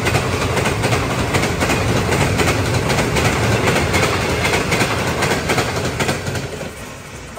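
Passenger train running on the rails: a steady low rumble with irregular rattling clacks from the carriage. It grows quieter about six seconds in.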